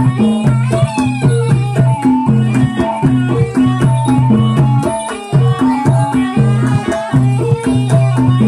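Javanese ebeg (kuda lumping) accompaniment music: a traditional ensemble plays a repeating melodic pattern over a bass line, driven by steady drumming and percussion.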